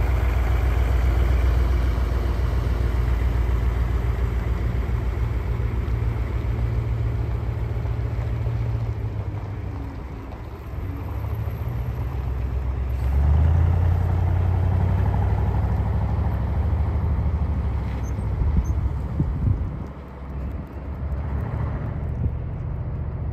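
Heavy MAN KAT truck's diesel engine pulling away under load, towing a stalled pickup to bump-start it. The engine note steps up and gets louder about halfway through, then fades as the truck draws off into the distance.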